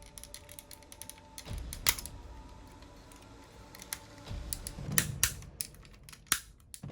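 Irregular hard plastic clicks and snaps from a Metal Cardbot transforming toy being handled, its parts moved and locked into place. The loudest clicks come about two seconds in and again around five seconds in.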